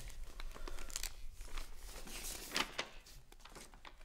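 Sheets of paper rustling and crinkling in short, irregular bursts as they are handled.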